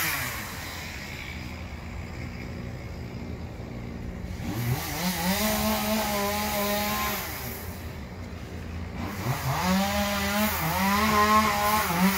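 Small gas engine of landscaping equipment revving up about four seconds in, holding high for a few seconds and easing back, then revving up again and holding near the end, with short dips as the throttle is worked.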